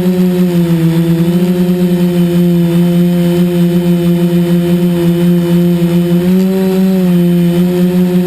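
Quadcopter's four KDA 20-22L brushless motors and propellers humming steadily in flight, the pitch wavering slightly, rising about six seconds in and dropping back about a second later as the throttle changes.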